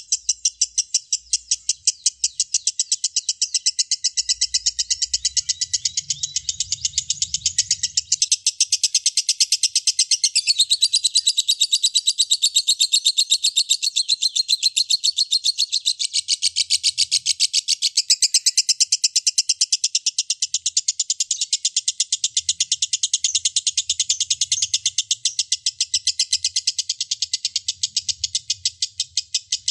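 Lovebird ngekek: a long unbroken chattering trill of rapid, evenly repeated shrill notes, kept up without a pause.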